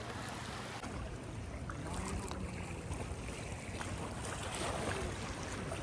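Seaside ambience: steady wind and small waves lapping in shallow sea water.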